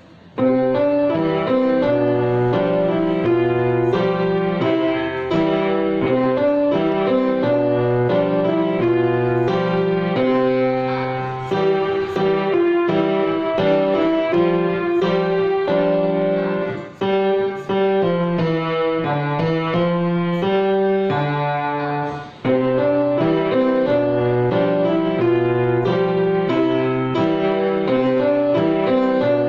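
Solo piano playing continuously: a melody over a steady low accompaniment, starting about half a second in, with two short breaks in the flow in the second half.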